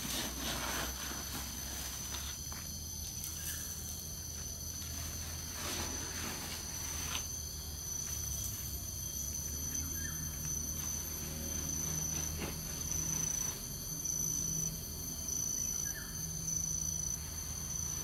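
Insect chorus of crickets with a steady shrill high tone that begins pulsing on and off about halfway through. A low hum runs underneath, and a few brief rustles come in the first few seconds.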